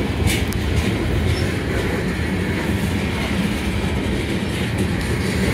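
Freight train of railroad tank cars rolling past close by: a steady rumble of steel wheels on the rails, with a few clicks.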